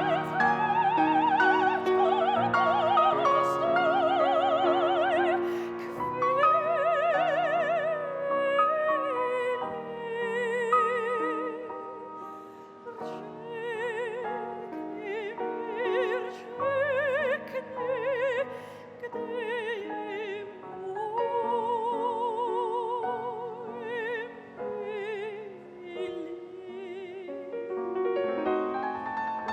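Classical operatic singing: a high voice holding long notes with a wide vibrato, over piano accompaniment.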